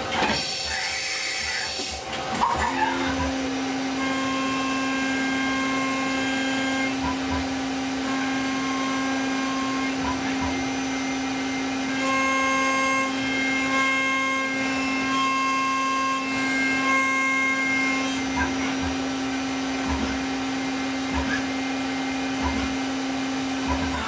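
CNC vertical machining center milling an aluminum part. After a short high buzz in the first two seconds, the spindle comes up to a steady whine about three seconds in and holds it. Higher cutting tones come and go every second or two as the end mill cuts.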